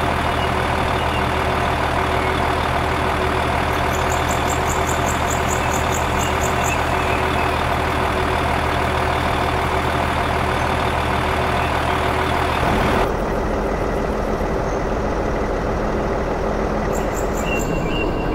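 Truck engine idling steadily. About two-thirds of the way through it switches abruptly to a different, lighter engine sound, and a short run of fast high ticks sounds twice.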